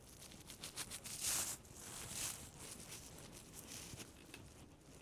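Faint handling noises of a small tool working on a plastic TV remote's case: light clicks and two short scrapes about one and two seconds in.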